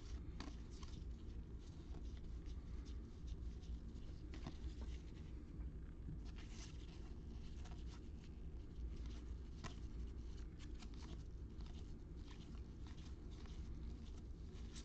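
Football trading cards being flipped and shuffled in the hands: an irregular run of soft ticks and rustles of card stock over a low steady hum.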